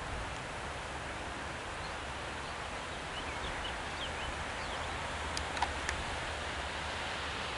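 Steady hiss of wet, rainy woodland, with a few brief bird chirps midway and a couple of sharp clicks a little later.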